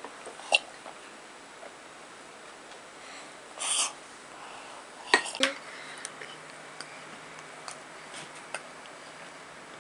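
Quiet room tone with a few small clicks and light knocks and one short breathy noise as a toddler drinks from a plastic mug.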